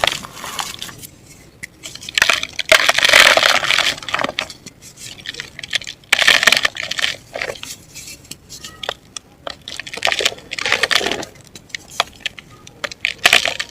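Dry clumps of mud and black dirt being crumbled and crushed, in about four gritty crackling bursts with small clicks and taps between them.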